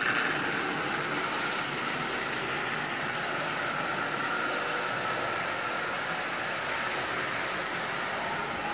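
Marx 999 toy steam locomotive running around three-rail tinplate track, pulling a train of Lionel cars. Its motor whirs and its wheels roll on the steel rails in a steady rumble.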